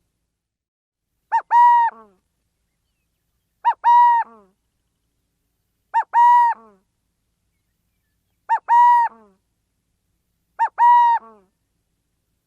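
Burrowing owl calling, the same two-part call repeated five times at an even pace of about one every two seconds. Each call is a short note followed by a longer held note that drops away at the end.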